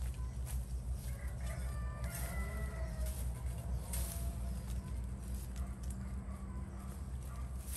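Fowl calling, with pitched calls clustered in the first few seconds, over a steady low hum and scattered sharp clicks.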